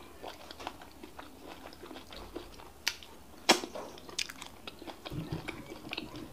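Close-miked chewing and smacking of fufu and bitter leaf soup eaten by hand, with irregular wet mouth clicks; the loudest smack comes about three and a half seconds in.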